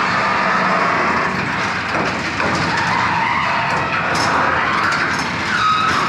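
Sectional steel garage door rolling open on its track, its moving parts squeaking and squealing continuously throughout, with a short gliding squeal near the end: parts that are dry and due for lubrication.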